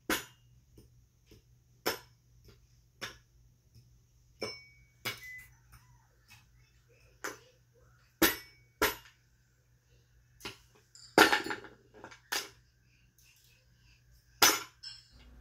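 A toddler banging on a toy xylophone's metal bars: single notes struck at uneven intervals, each ringing briefly, with a quick flurry of strikes about eleven seconds in. A faint steady low hum runs underneath.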